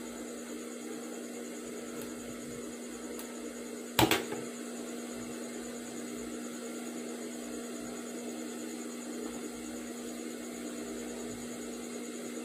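Steady electrical motor hum in a small workroom, with one sharp knock about four seconds in.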